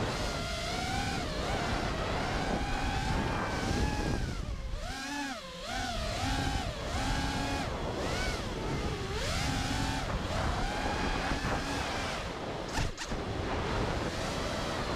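FPV freestyle quadcopter's brushless motors and propellers whining, the pitch rising and falling sharply with each throttle change, over wind rushing past the onboard camera's microphone. A short sharp tick about 13 seconds in.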